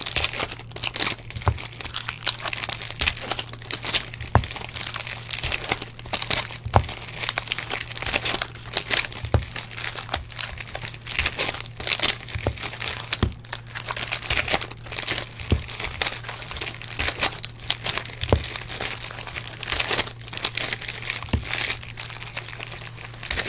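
Foil Topps Chrome trading-card pack wrappers being torn open and crinkled by hand, with a dense, irregular crackle throughout as the cards are pulled out and handled. A steady low hum sits underneath.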